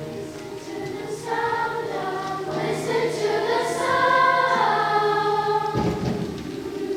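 Children's choir singing a sustained passage, the voices swelling louder toward the middle and then easing back.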